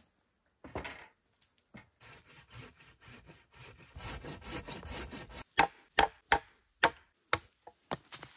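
Wood being worked with a hand tool: a stretch of rough rubbing or sawing, then about seven sharp knocks about half a second apart, the loudest sounds, as the wood is struck.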